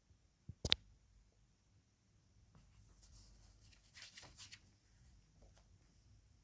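A single sharp click a little under a second in, then a few seconds of faint scratching and rustling, like something being handled.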